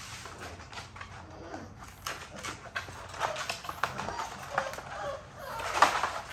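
Six-week-old American bully puppy fussing while its mouth is held open for dewormer paste: small grunts and whimpers mixed with wet clicks and smacks of its mouth, loudest near the end.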